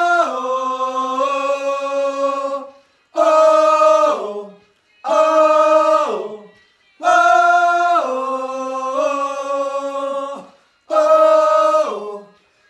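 A small group of men singing a cappella in close harmony: held 'oh' chords in short phrases, each ending in a downward slide, with brief pauses between them.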